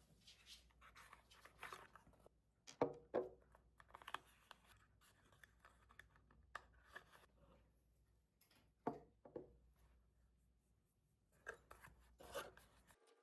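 Quiet handling noises: intermittent rustling and scraping with a few sharp clicks and taps, the loudest about three seconds in, again about nine seconds in, and near the end.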